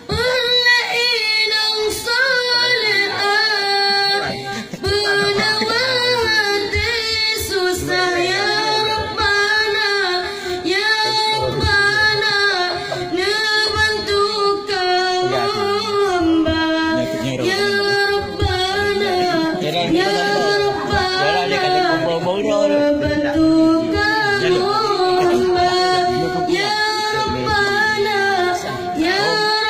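A high solo voice singing long, ornamented melodic lines, the notes held and bent with many turns.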